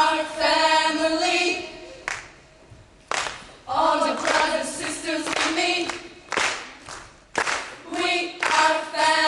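A group of women singing together in short phrases, with sharp hand claps falling in the pauses between the phrases.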